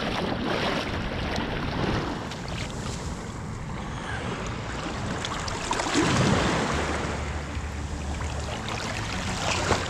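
Shallow surf washing and water sloshing as a hand lowers a fish into it, with wind rumbling on the microphone. The water noise swells about six seconds in.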